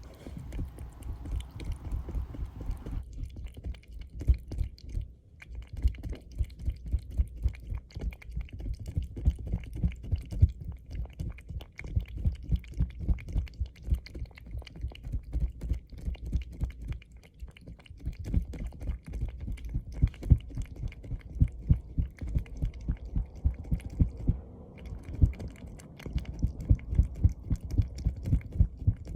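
A cat licking a Ciao Churu paste treat off stretched plastic wrap: a rapid, regular run of soft low thumps and wet ticks from its tongue, several licks a second, close to the microphone.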